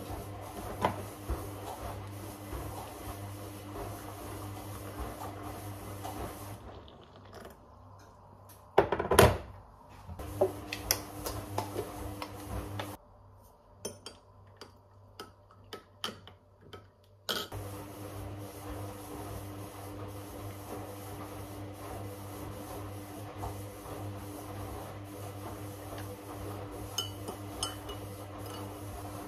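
Scattered small clinks and knocks of household objects being handled, over a steady low electrical hum. One louder clatter comes about nine seconds in. The background changes abruptly a few times.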